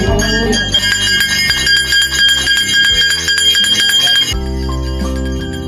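Background music with bright, bell-like ringing tones over a held bass line; the bass and chords change about four seconds in.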